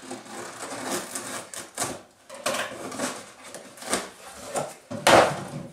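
Cardboard box being opened by hand: packing tape slit and torn, and the flaps pulled back, making a run of irregular scraping and crackling sounds, with a louder rustle of the box contents about five seconds in.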